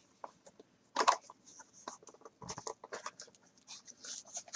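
Trading cards being handled and slid against one another: soft rustling and light scraping, with a sharper click about a second in.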